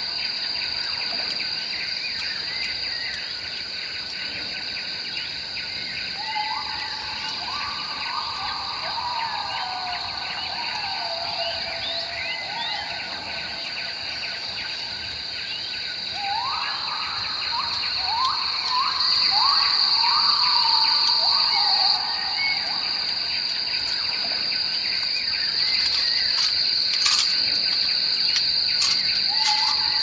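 Forest ambience: a steady high-pitched insect drone that swells louder twice, with runs of short rising bird calls over it.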